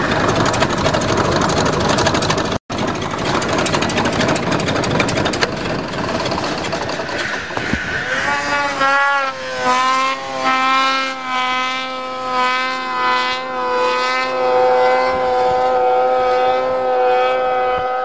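Bulldozer diesel engine running loud for the first half, broken by a momentary dropout. About halfway through, a snowmobile engine takes over with a high, clear whine that rises briefly, then holds a fairly steady pitch with a slight waver.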